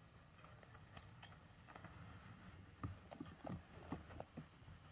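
Faint, irregular light taps and knocks from a cat pawing at the underside of a bed while lying on its back, starting about a second in and coming more often in the second half.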